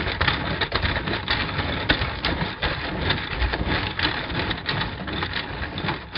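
Steady kitchen clatter: a dense, continuous run of small clicks and rattles over a noisy bed, with no single loud event.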